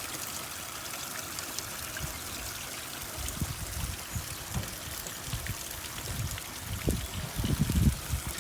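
Water running and trickling steadily as a gutter is flushed, leaking out through holes in the gutter section. Irregular low rumbles come in from about three seconds in.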